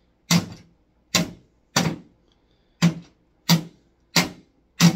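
A long wooden stick striking the plastic casing of a Westinghouse 5-CD changer and cassette stereo, seven hard blows about two-thirds of a second apart.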